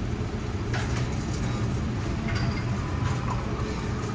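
Steady low hum of the restaurant's air extraction around a tabletop yakiniku grill, with a few light clicks of chopsticks and dishes.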